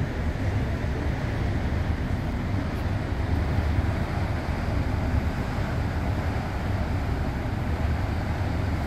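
River cruise ship running with a steady low rumble and hiss while moving slowly through a lock chamber.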